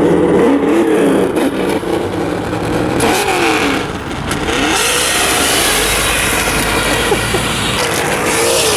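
Electric RC truck motor whining, rising and falling in pitch as the throttle is worked, with tyres hissing over loose gravel.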